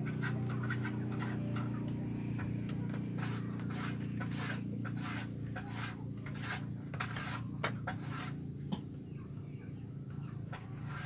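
Irregular light clicks, taps and scrapes of bamboo slats as small bamboo cricket boxes are lifted, set down and handled, over a low steady hum.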